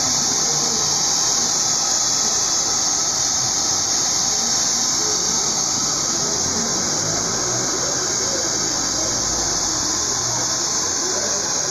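Hand-held hair dryer running steadily, a loud, even, airy hiss, as it blow-dries wet hair during a brush-out.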